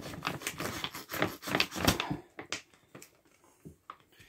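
Large plastic dog-food bag crinkling and crackling as it is handled, a dense run of quick crackles that thins to a few scattered clicks after about two seconds.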